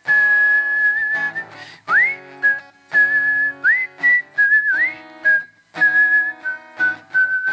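A man whistling a tune of held high notes, three of them entered with a quick upward swoop, over strummed acoustic guitar chords.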